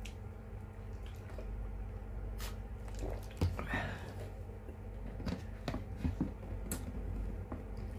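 Close-miked eating sounds: wet chewing, squishing and small mouth clicks of a person eating stewed fish. A steady low hum runs underneath.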